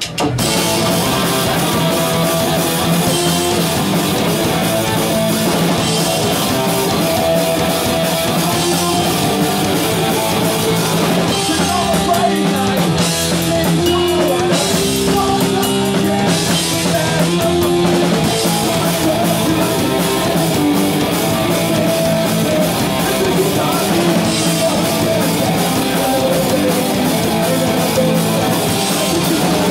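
Punk rock band playing live: electric guitar, bass guitar and drum kit kick in together all at once and run loud and steady.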